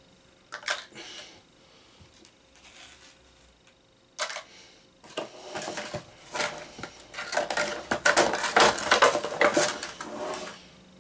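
Action figure packaging being handled as a figure is worked free: irregular clicks, taps and crinkly rustling. A couple of clicks come about a second in, then a pause, and it turns busy from about four seconds in, densest in the second half.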